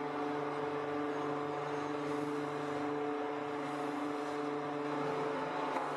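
Steady electric hum of a die-casting machine's running motor and hydraulics, a held low drone with several overtones, with a small click near the end.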